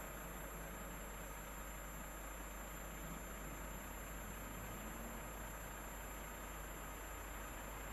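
Faint, steady rumble of a distant diesel freight locomotive approaching along the line, under a constant outdoor hiss.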